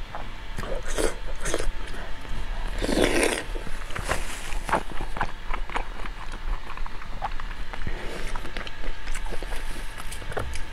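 Close-miked eating: wet chewing, smacking and sucking while gnawing soft braised trotter meat, with irregular clicks from the mouth. One louder, longer mouth sound comes about three seconds in.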